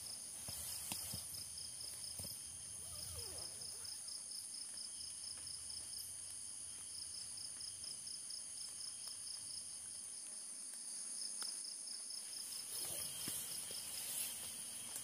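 A chorus of forest insects, crickets or cicadas, singing steadily in several high-pitched tones, one of them a fast pulsing trill. There are a few faint ticks as well.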